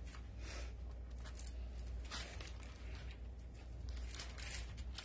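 Pages of a Bible rustling as they are turned and smoothed: a few soft, scattered rustles of thin paper, over a steady low hum.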